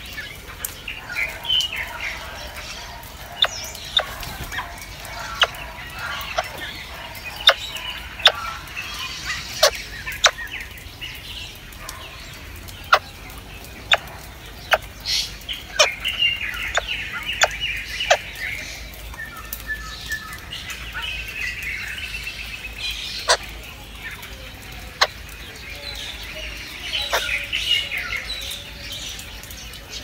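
Common blackbirds at the nest, with short chirping calls and many sharp clicks scattered throughout as the adults feed the nestlings.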